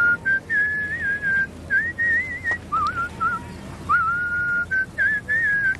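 A person whistling a tune: a string of held notes with little wavering turns, broken by short gaps between phrases.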